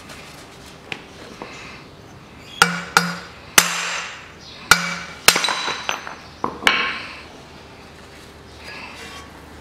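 Hammer blows on a 32 mm socket held against the hub of a Toyota Harrier's front steering knuckle, driving the hub out of the worn front wheel bearing. About six sharp, ringing metal strikes fall between roughly two and a half and seven seconds in.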